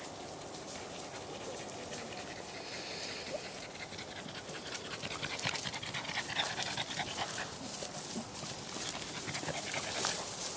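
A large dog panting close by in quick, rhythmic breaths, loudest in the middle of the stretch.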